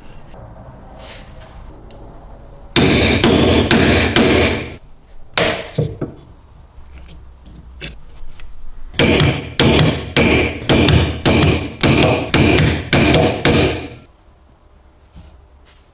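Repeated hard strikes, each ringing briefly. There is a short run of about five a little under three seconds in, a few lighter taps, then a steady run of about ten, roughly two a second, from about nine seconds in.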